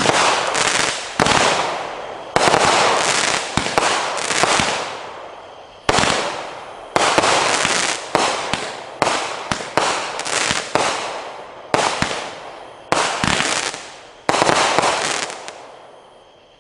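Hardcore Pyro Assassin series 'Scorpion' consumer firework cake firing a string of about a dozen shots at uneven spacing. Each shot ends in a sudden aerial burst with a crackling tail that fades. The last burst dies away shortly before the end.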